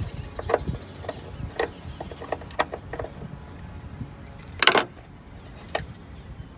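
Screwdriver clicking and tapping against a bolt and the sheet-metal headlight support, about five sharp metallic clicks spread over several seconds, the loudest a little under five seconds in, over a low background rumble.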